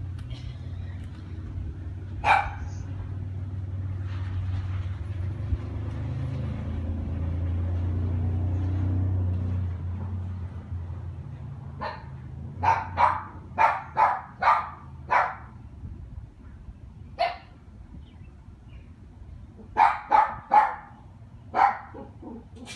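Dog barking in bursts: a single bark about two seconds in, then a run of quick barks around the middle, another single bark, and a last cluster of four barks near the end. A low rumble swells and fades during the first ten seconds.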